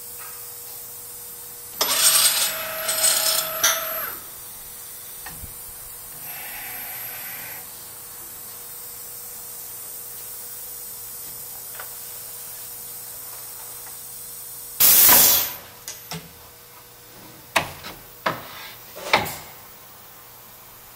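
US Concepts CSR-300 CNC handrail drilling machine running its cycle. Its router motor whirs in a loud burst of about two seconds, starting about two seconds in. A shorter, louder burst of noise comes just past the middle, followed by a scatter of sharp knocks and clicks from the machine.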